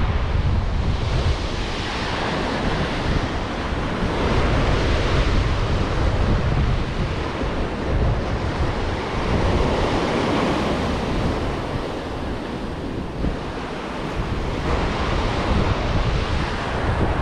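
Ocean surf breaking and washing up a sandy beach, swelling and easing as the waves come in, with wind rumbling on the microphone.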